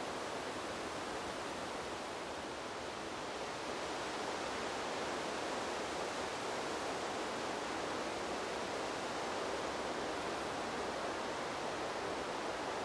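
Wind blowing through trees: a steady rustle of leaves and branches that swells a little about four seconds in.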